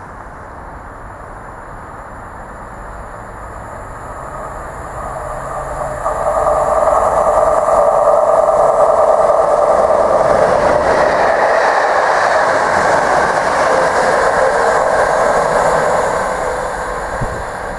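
Class 37 diesel locomotive 37425, with its English Electric engine, approaching and running through on a short test train. The sound builds from about four seconds in and is loudest over the middle of the clip as the locomotive and coaches pass. It eases off near the end as the train draws away.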